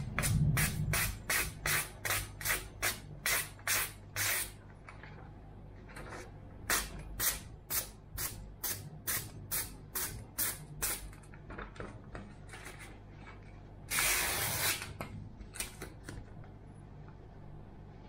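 A sharpened kitchen chef's knife slicing down through a sheet of magazine paper, a paper-slicing test of the edge: quick, crisp cutting strokes at about three a second in two runs, then a rustle of the paper about a second long near the end.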